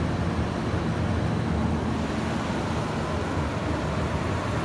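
Fans of three Buffalo Trident evaporators in a walk-in refrigerator running: a steady hum with an even rush of air.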